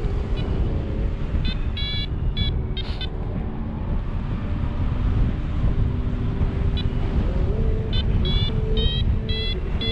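Paragliding variometer sounding its climb tone, short high beeps at about two a second, which signal rising air: a few beeps a second or two in, then a steady run from past the middle. Under it, wind rushing over the microphone.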